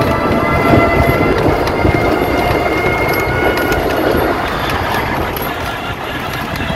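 Steady rumble and running noise of a moving vehicle heard from on board, with a faint high whine running through it.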